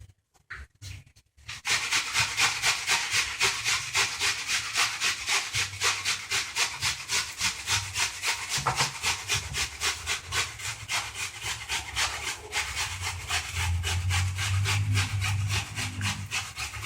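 An onion being grated on a hand grater: rhythmic scraping strokes, about three a second, starting about a second and a half in.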